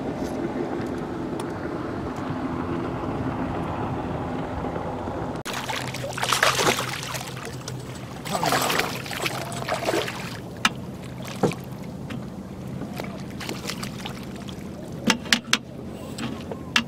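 A hooked bass splashing and thrashing at the water's surface on a topwater lure, in two loud bursts about two seconds apart, over the steady hum of a boat motor. A few sharp clicks follow near the end.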